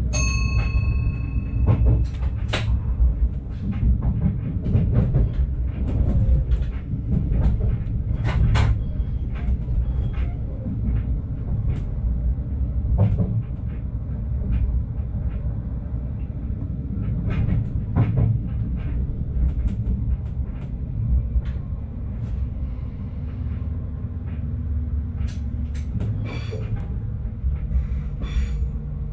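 Stadler GTW train running along the tracks: a steady low rumble with frequent short clicks and knocks as the wheels pass over rail joints and points. A brief high steady tone sounds right at the start.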